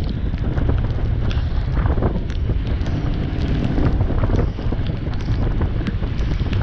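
Wind buffeting the microphone over a heavy low rumble, with scattered short clicks and knocks.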